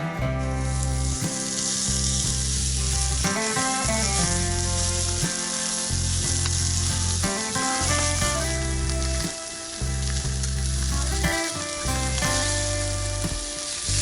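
Food sizzling steadily as it fries in a hot pan, with background music underneath.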